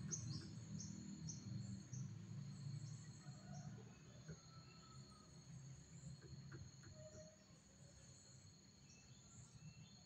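Faint, steady high-pitched insect trilling, with a run of short, high, falling chirps about every half second over the first few seconds that fade away. A low rumble dies out in the first few seconds.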